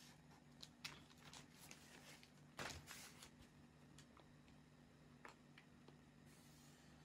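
Near silence with faint, scattered ticks and rustles of pattern paper and drafting tools being handled, the loudest about two and a half seconds in, over a faint steady hum.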